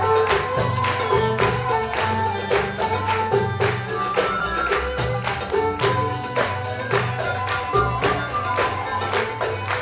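Live Arabic takht ensemble playing traditional music: plucked and bowed instruments carry the melody over a bass line, with a steady hand-percussion beat of a few strikes a second.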